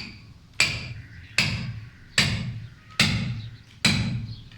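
Hammer striking a steel chisel into concrete, five even blows about 0.8 s apart, each with a short ring, as a concrete corner is chipped off.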